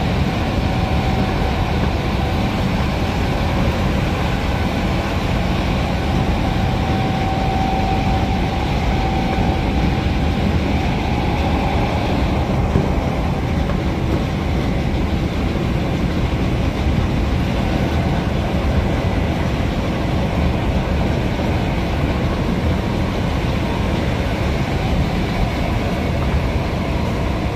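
Interior running noise of a Class 319 electric multiple unit at about 80–85 mph: a steady rumble of wheels on rail, with the whine of its traction motors over it, strongest about a third of the way in.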